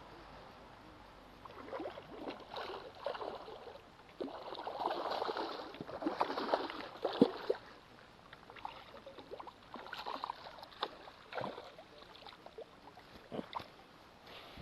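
Water splashing and sloshing in irregular bursts, heaviest in the middle, with a sharp knock about seven seconds in.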